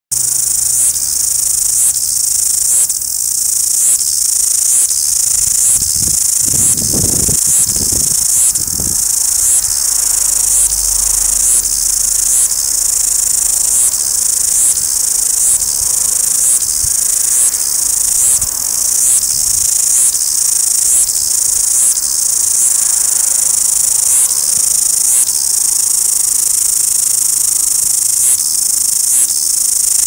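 New Zealand cicadas singing in chorus: a loud, high, continuous shrill with an even pulse about one and a half times a second.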